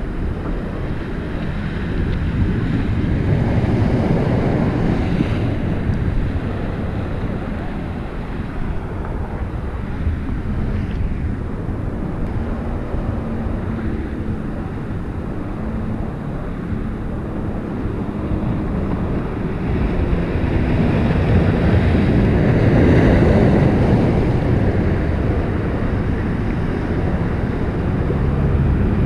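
Wind buffeting the microphone over small waves washing against a rock breakwater. It swells louder about four seconds in and again past twenty seconds.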